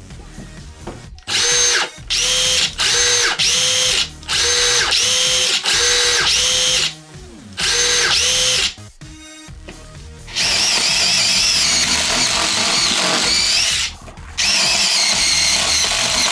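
Two cordless impact drivers, a DeWalt Atomic DCF850 and a Milwaukee, run unloaded in short trigger pulls: about nine half-second whines, each rising as the motor spins up and falling away as it stops. From about ten seconds in, the DeWalt Atomic drives long screws into stacked OSB under load, a continuous impacting run with a short break near fourteen seconds.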